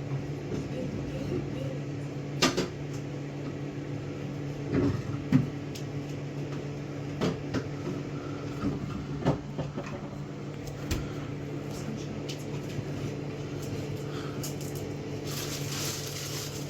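Microwave oven running with a steady hum while it heats a bag of popcorn that has not yet started popping. A few sharp clicks or knocks come at scattered moments, and a brief hiss sounds near the end.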